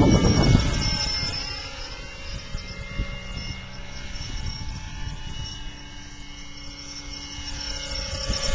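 Large radio-controlled helicopter converted to electric power, flying: the steady whir of its rotor with held tones from the electric drive over it, growing louder near the end as it comes in close.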